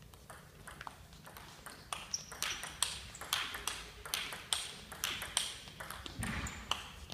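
Table tennis rally: the ball clicks sharply off rackets and table, faint at the serve and then louder and more regular from about two seconds in, at roughly two to three hits a second. A low thud comes near the end.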